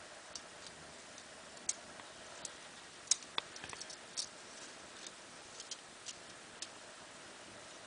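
Light, irregular clicks and taps of small parts and tools being handled on a work table while a pre-cut bus wire is laid in for soldering, the sharpest about three seconds in.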